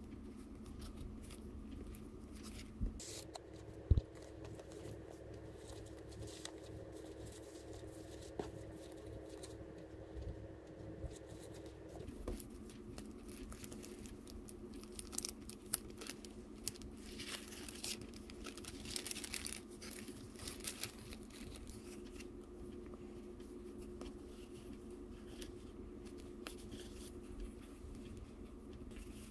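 Paper rustling and tearing as a kraft envelope and the folded paper inside are opened by hand, with scattered sharp taps; the loudest tap comes about four seconds in.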